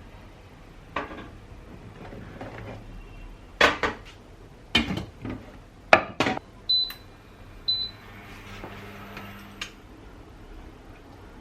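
Dishes and utensils clinking and knocking in a kitchen, a handful of sharp strikes. These are followed by two short high electronic beeps about a second apart, like an appliance's button beeps.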